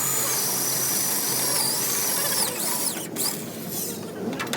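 A power tool running with a high, wavering whine over a hiss, stopping about two and a half seconds in, followed by a couple of short knocks.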